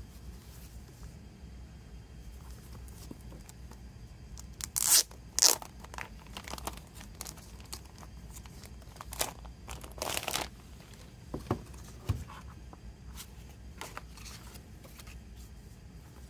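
Clear plastic shrink wrap being torn open and peeled off a Blu-ray box set, with crinkling. Two sharp rips about five seconds in are the loudest, followed by a run of shorter rips and crinkles.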